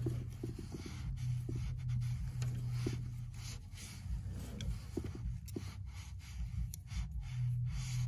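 Soft, irregular rustling and scratching in shredded paper bedding, over a steady low hum.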